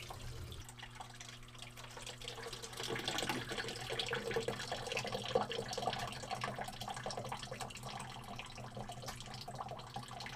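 Water draining out of a direct water-cooled GM 5.7-litre (350) marine engine block: a thin stream running steadily out of the open bottom drain port as the block is emptied for winterizing.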